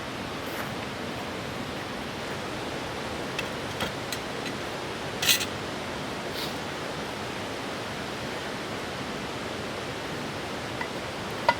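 Steady rush of flowing river water, with a few short sharp clicks on top, the loudest a little after five seconds and another near the end.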